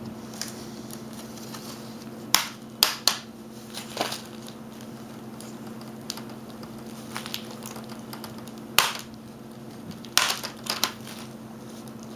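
Plastic screen bezel of a Dell Inspiron N5010 laptop snapping loose from its clips as it is pried off by hand: a series of sharp plastic cracks and clicks, coming in two clusters several seconds apart.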